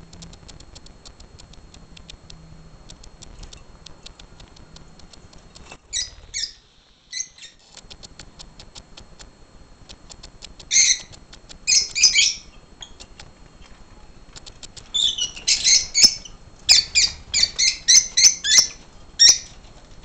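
Rosy-faced lovebirds giving short, high-pitched squawking calls: a few single calls at first, then a quick run of about a dozen in the last five seconds. Faint rapid clicking underlies the first several seconds.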